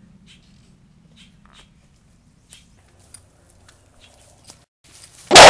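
Faint scattered clicks and ticks over a low hum, then loud rock music cuts in suddenly near the end.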